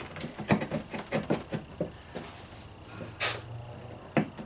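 Light clicks and knocks of hand work on a VW Beetle door hinge, about eight in quick irregular succession over the first two seconds, then a short hiss about three seconds in and one more knock near the end.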